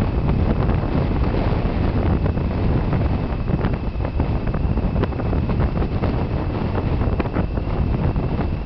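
Strong wind from Hurricane Dean buffeting the microphone, over the steady noise of heavy surf breaking on the beach.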